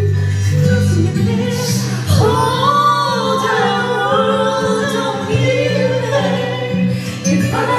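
Amplified singing by a woman and two men into microphones over instrumental accompaniment with a steady low bass line; the voices come in strongly about two seconds in.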